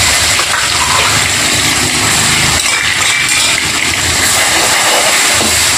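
Onion, ginger and garlic paste sizzling as it is spooned into hot mustard oil in a wok, with a spoon stirring it; a loud, steady frying hiss.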